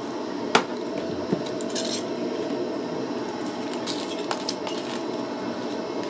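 Handling of a new spice container while it is being opened: a sharp click about half a second in, then a few brief scratchy rustles, over a steady low hum in the room.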